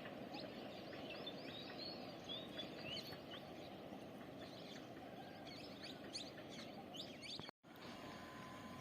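Birds chirping in quick short calls over a faint, steady low background rumble; the sound cuts out for a moment about seven and a half seconds in.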